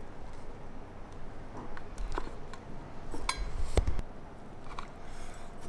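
Scattered light clicks and taps as pieces of garlic bread are set on a ceramic serving plate, with one louder knock about four seconds in.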